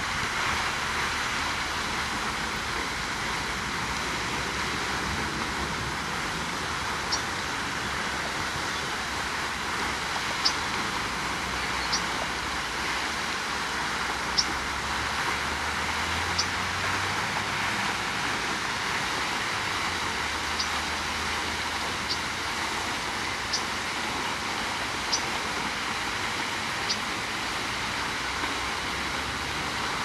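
Steady road-traffic noise, with short, high single chirps from a small bird about every one and a half to two seconds from about seven seconds in.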